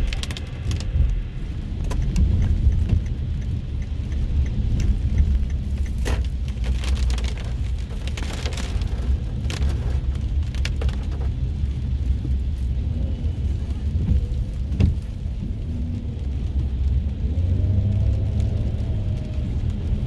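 A car's steady low rumble heard from inside the cabin while driving in heavy rain, with rain hitting the car and scattered sharp taps.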